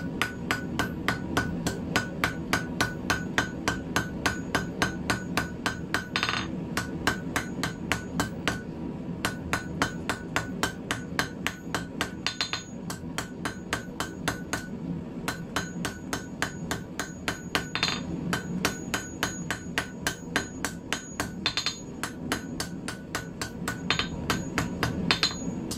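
Hand hammer tapping hot round steel bar on an anvil: quick, light, even taps, about three or four a second, with the anvil ringing under each blow and a few blows ringing on longer. The taps are rounding off an eight-sided taper by dulling its edges down.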